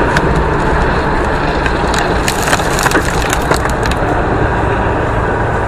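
Loud rushing road and wind noise from a vehicle moving at speed, with a rapid cluster of sharp cracks and snaps about two to four seconds in.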